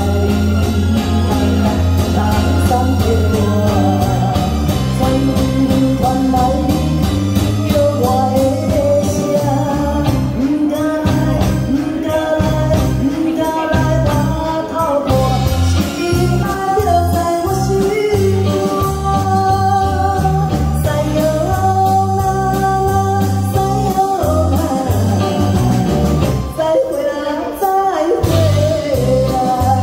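Woman singing a pop song live into a microphone through a PA, backed by a live band with guitars and keyboard.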